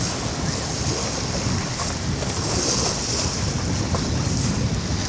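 Wind rushing steadily over the microphone, with the wash of the sea against a boat.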